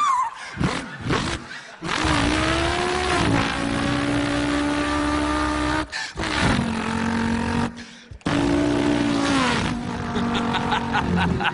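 A man imitating a V8 race car engine with his voice: held engine notes that glide and step in pitch like revving and gear changes, broken twice by short pauses. A quick run of popping clicks comes near the end.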